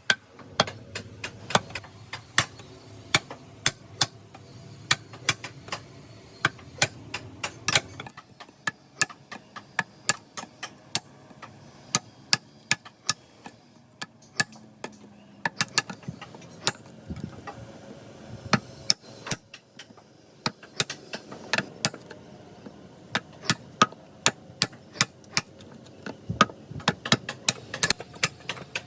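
An irregular series of sharp hammer blows, one to three a second, over a low steady hum.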